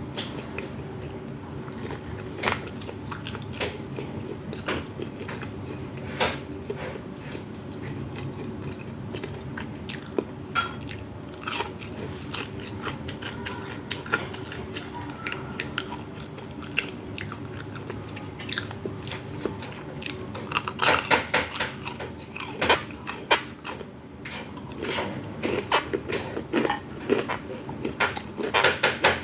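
Close-miked eating sounds: a person chewing and biting food, with many sharp crunchy clicks that come thickest about two-thirds of the way through and again near the end, over a faint steady hum.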